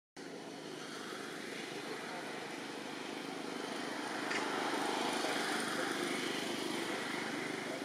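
Distant engine noise, like a passing aircraft or motor vehicle, swelling gradually to a peak about five seconds in and then easing off, over a faint steady high hum.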